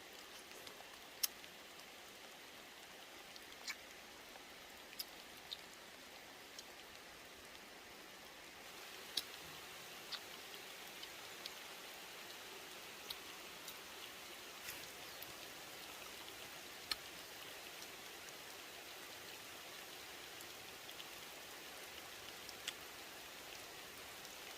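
Faint steady hiss, like light rain, with scattered sharp ticks and drips. It grows slightly louder about nine seconds in.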